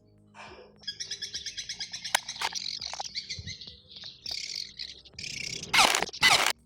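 A bird chirping in a rapid, pulsing trill, followed near the end by a couple of loud scraping noise bursts.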